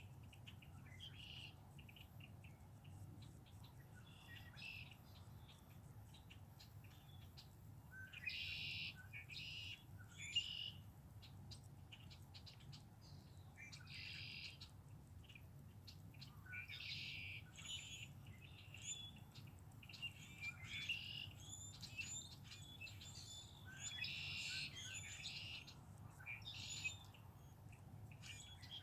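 Songbirds chirping and singing in short phrases that recur every few seconds, over a faint steady low hum.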